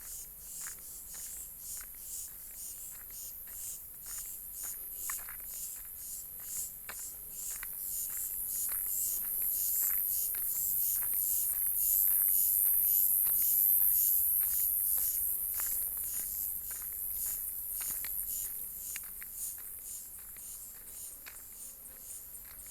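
Insects, likely crickets, in a steady high-pitched shrill chorus that grows louder about halfway through and then fades back, pulsing about two to three times a second.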